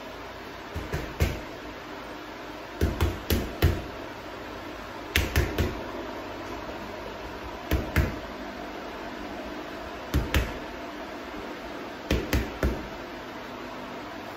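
Gloved punches landing on a leather heavy bag as dull thuds, thrown in short combinations of two to four hits every two or three seconds.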